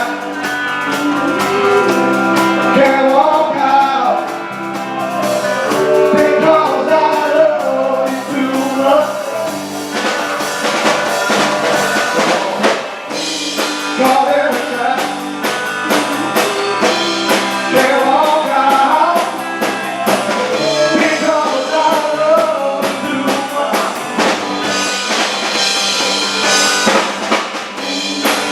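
Live band performing a song with a lead singer; the singing drops out for a few seconds around the middle while the band plays on.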